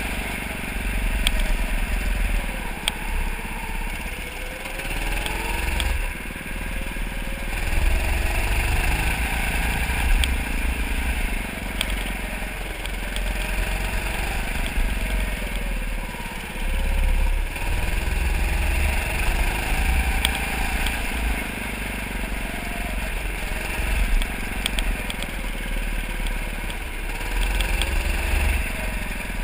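Go-kart motor running at speed on a track, its pitch rising and falling again and again as the kart speeds up on the straights and slows for the corners. Wind and vibration buffet the kart-mounted camera's microphone with a deep rumble.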